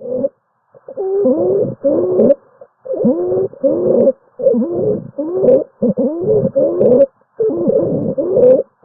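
Recorded stridor: about ten short, pitched, sliding breath sounds in quick succession, starting about a second in. It is a noise made in the throat, the sign of a narrowed upper airway and of impending loss of airway.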